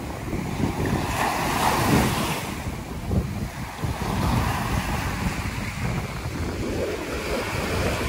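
Small sea waves breaking and washing up a sandy beach, the surf swelling about two seconds in, with wind buffeting the microphone.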